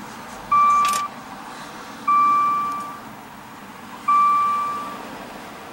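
Maserati Ghibli's electronic warning chime sounding three times, about every two seconds. Each chime is a single steady tone that fades away. The instrument cluster shows a door open while it sounds.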